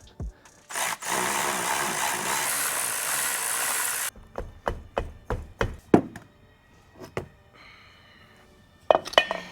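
A harsh, steady noise for about three seconds that cuts off suddenly, then a run of separate knocks and clunks of tools and metal parts as the drive shaft is worked free of the car.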